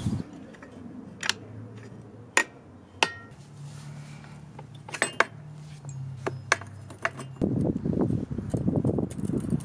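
Sharp metallic clinks and taps of tools and parts being handled at a dirt bike's rear shock linkage, about seven separate clicks. A loud rough rumbling rush of noise sets in about three-quarters of the way through.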